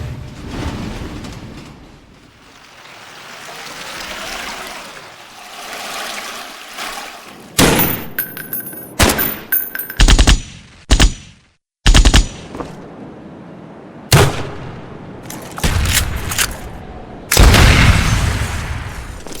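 A run of stock sound effects played back to back: a rush of noise that swells and fades twice, then a string of loud sudden bangs and hits, some with a high metallic ring. The last hit is the longest and dies away slowly.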